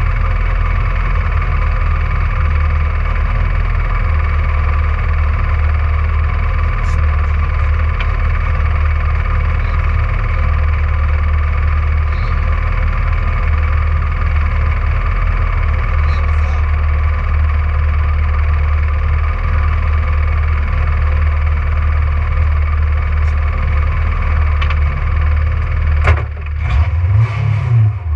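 Rally car's engine running at a steady, unchanging note. Near the end come a few sharp knocks and the engine note rises and falls.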